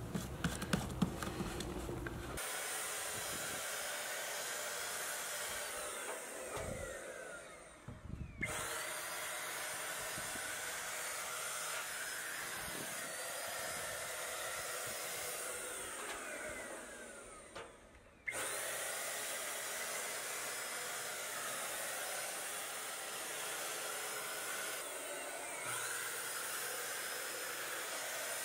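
A few plastic clicks as the air cap is fitted, then a HomeRight Super Finish Max electric HVLP paint sprayer running with a steady hiss as it sprays paint. Twice it dies away, falling in pitch, and then comes back on abruptly.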